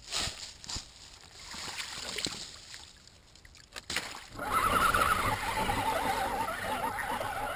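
Water splashing and sloshing as a radio-controlled crawler truck wades up a shallow creek, with a few light knocks, then about four seconds in a sudden louder wash of gurgling water close by.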